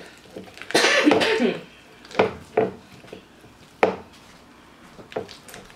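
A spatula knocking several times against a plastic mixing bowl while cream cheese and sour cream are stirred together, in short sharp knocks spaced unevenly. Before the knocks, about a second in, there is a brief loud noisy burst.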